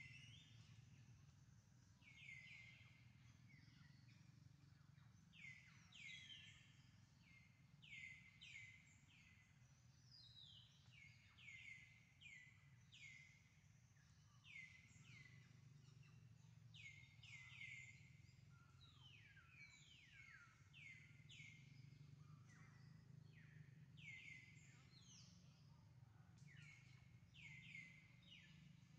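Faint bird chirps: short notes that each slide down in pitch, repeated in quick clusters of two to four. A low steady hum runs underneath.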